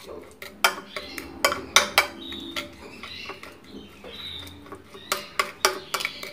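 Spoon clinking and scraping against a dish as a mixture is stirred, a string of sharp, irregular clicks about two or three a second.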